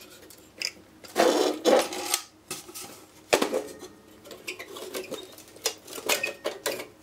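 Metal-on-metal clatter, scraping and sharp clicks from handling the steel chassis and plug-in circuit cards of a Bentley Nevada 5000 series vibration monitor's card rack. The clatter comes in bursts, loudest about a second in and again near the end as a card is gripped and worked loose from the rack.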